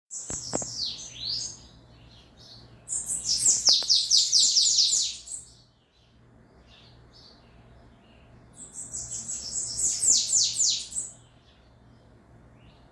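Caged bananaquit (sibite) singing: a few short high chirps, then two loud phrases of rapid, thin, high notes sliding downward, each lasting two to three seconds, the second about nine seconds in.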